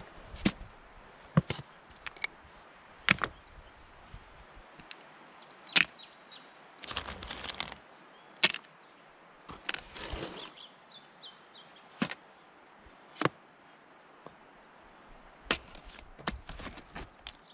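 Irregular sharp knocks, about fifteen of them with uneven gaps, with short scraping rustles between some of them. Brief high bird chirps come near the middle.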